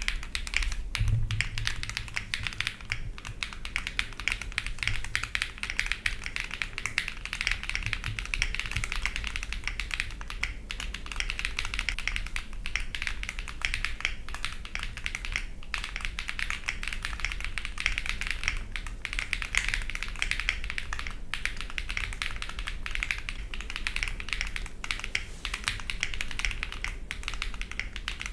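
Fast, continuous typing on a Trashbin50 gasket-mount mechanical keyboard with SWK Yang linear switches (nylon housing, POM stem), a polycarbonate plate, foam-dampened case and ePBT keycaps: a dense run of keystrokes with only brief pauses.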